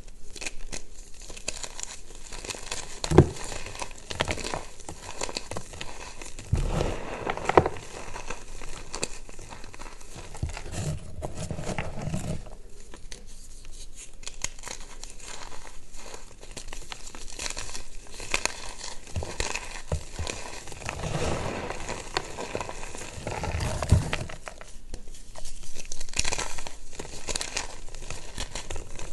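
Reformed gym chalk bars crushed by hand: continuous crunching and crumbling of the chalk, with a few sharp snaps as pieces break. Near the end, chalk chunks and powder are squeezed and sifted through the fingers.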